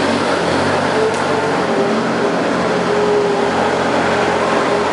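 Small excavator's engine running steadily as the machine is manoeuvred into position.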